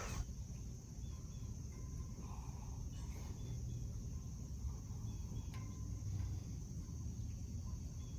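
Faint outdoor ambience: a steady high-pitched insect drone, typical of crickets, over a low rumble, with a couple of faint clicks.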